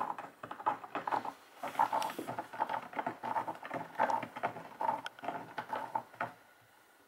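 Cat biting and rubbing its face against the frayed edge of a corrugated cardboard scratcher: quick scratchy crunching that stops about six seconds in.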